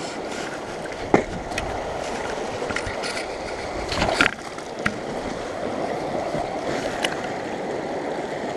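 Small mountain stream running, a steady rush of water, with a few sharp clicks or knocks over it: the loudest about a second in and a brief cluster around four seconds.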